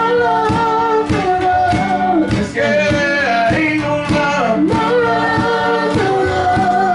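A gospel group singing over a live electric band of bass, guitar, drums and keyboard, with long held, wavering vocal notes and a steady drum beat.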